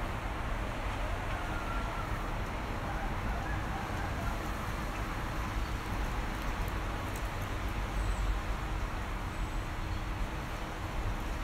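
Steady low background rumble with a faint hiss above it, even throughout, with no distinct event standing out.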